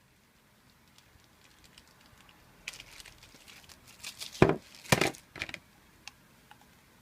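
Packaging of a stamp scrubber being handled and opened: quiet crinkling with a few sharp cracks, the loudest two about four and a half and five seconds in.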